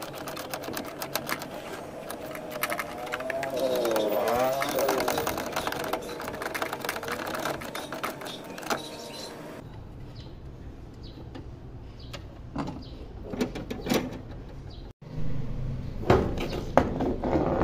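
Socket ratchet clicking rapidly as the nuts holding a Nissan Frontier's brake master cylinder are turned. After that, a few separate knocks and clicks as the removed metal master cylinder is handled.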